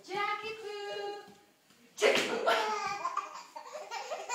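A baby's high-pitched, drawn-out babbling for about a second, then a short pause. Loud voices start abruptly about two seconds in.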